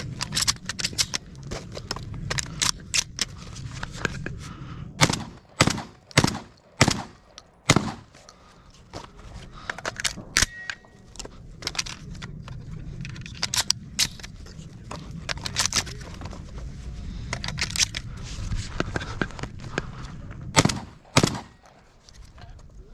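Shotgun shots at clay targets: a run of five loud reports about five to eight seconds in and a close pair near the end, with many fainter shots and clicks between, over a steady low rumble.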